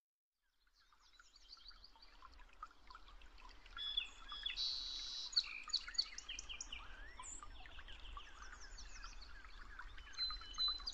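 Faint birdsong: many birds chirping with quick short calls, fading in from silence about a second in and continuing steadily.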